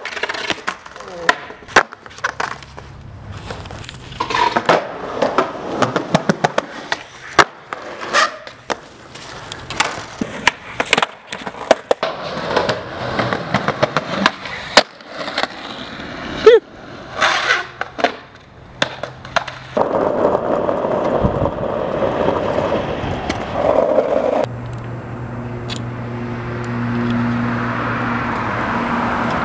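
Skateboard wheels rolling on asphalt and concrete, with many sharp clacks of the board popping, landing and slapping the ground. After about twenty seconds the clacks stop and a steadier rumble and hum take over.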